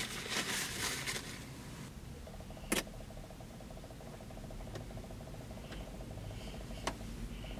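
Paper napkin rustling as eyeglasses are wiped, then a quiet car cabin with a low hum and two sharp clicks, one about three seconds in and one near the end.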